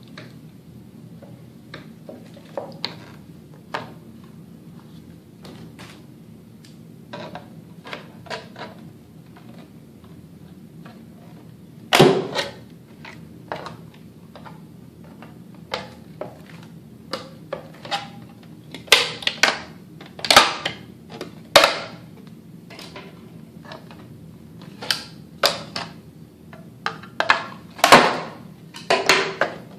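Scissors and snips cutting through the edge of white plastic armor pieces: irregular crisp snips and crunches, with louder clusters about twelve seconds in, around twenty seconds and near the end, and light knocks of the plastic being handled.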